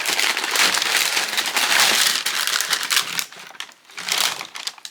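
Packing paper inside a sneaker box crinkling and rustling as it is handled and pulled back from a new pair of shoes. The rustling is dense for about three seconds, then drops off, with one more short rustle near the end.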